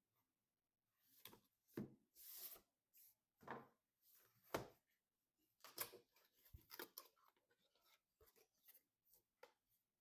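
Faint handling noises of PC parts and packaging being worked by hand: scattered light knocks and clicks, the sharpest about two, four and a half and six seconds in, mixed with short rustling scrapes.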